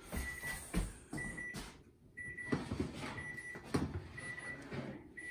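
An electric oven's timer beeping over and over, one short high beep about every 0.7 s, signalling that the baking time is up. Clunks and scrapes of the metal oven rack and baking sheet being slid out of the oven sound between the beeps.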